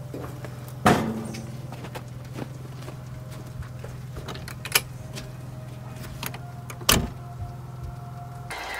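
A steady low hum with a few sharp knocks and clicks, the loudest about a second in and again near seven seconds; the hum cuts off just before the end.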